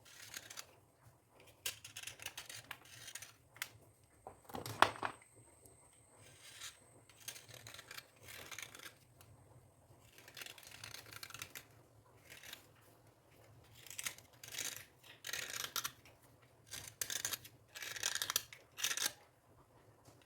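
Close-up scraping, a series of short, irregular scratchy strokes that come thicker and louder in the second half, with one sharp click about five seconds in.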